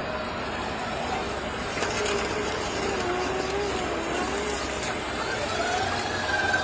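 Radio-controlled excavator's hydraulic pump and motors whining steadily over a mechanical hum, the whine wavering up and down in pitch as the load changes.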